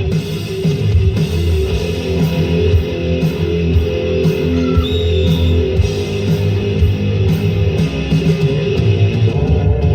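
Rock music with guitar, steady and loud, without singing.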